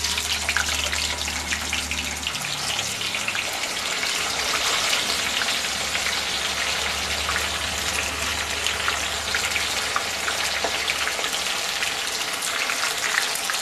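Paneer cubes deep-frying in hot oil in an iron kadai: a steady sizzling hiss dotted with many small crackles and pops.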